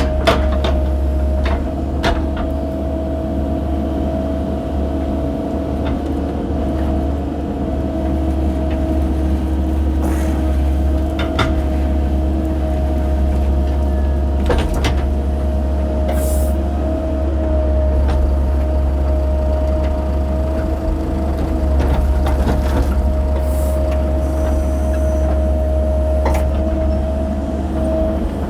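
Mini excavator engine running steadily with a constant whine over a low rumble, with scattered clanks and knocks as the bucket scrapes and knocks out dirt.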